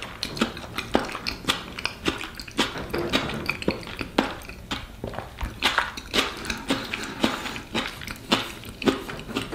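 A person chewing and smacking their lips close to the microphone: a run of irregular soft wet clicks.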